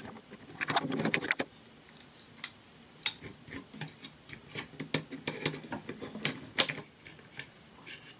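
Light clicks and taps of the hard plastic parts of a 1970s Tomy Karate Robot being handled and pressed together during reassembly: a quick flurry of clicks about a second in, then scattered single clicks.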